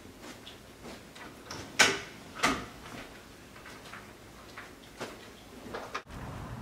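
Two sharp knocks about a second apart among softer footsteps and shuffling, as people get up off a couch and walk across a room. The sound cuts off suddenly near the end into a steady outdoor background.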